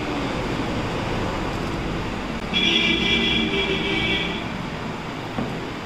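Steady background noise, traffic-like, with a held pitched tone lasting about two seconds in the middle.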